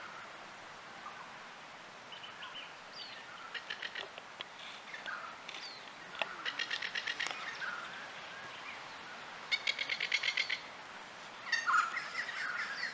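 Masked lapwing calling: several bursts of rapid rattling notes, each about a second long, with thinner sliding notes between them.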